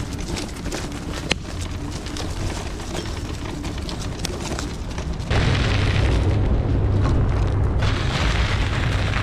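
Halten F1 electric scooter on 10-inch tyres riding over rough, uneven ground: a steady rolling rumble with many small knocks. About five seconds in it turns louder and heavier. No creak or squeak from the spring suspension can be picked out, which is the point being shown: the suspension stays silent on bad roads.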